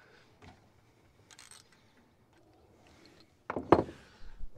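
A 14 mm wrench working the rear differential drain plug of a Kawasaki Teryx4: a few faint metal clicks, then one loud clunk about three and a half seconds in.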